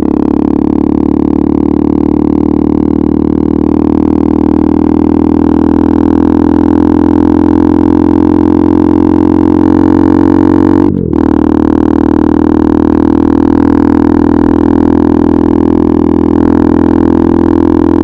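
KTM RC 390's single-cylinder engine through an Akrapovič exhaust, running loud and steady under throttle as the bike gathers speed. About eleven seconds in, the note cuts out briefly and dips as the rider changes up a gear, then picks up again.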